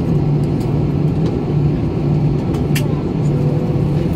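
Airbus A320 cabin noise while taxiing: a steady, low rumble from the jet engines at taxi power and the airframe, heard from a window seat over the wing, with a few light clicks.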